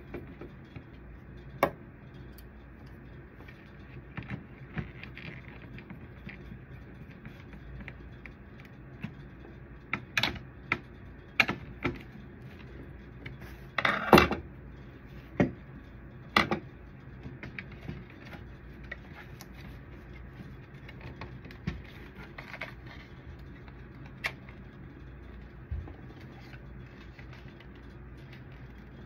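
Copier drum unit's plastic housing being handled and taken apart with a screwdriver: scattered clicks and knocks of plastic and metal parts, the loudest run of sharp clacks about ten to sixteen seconds in, over a steady low hum.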